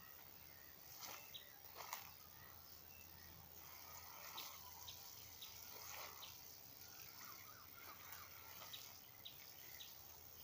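Faint outdoor ambience with small birds repeating short, high chirps, and a few soft clicks or rustles.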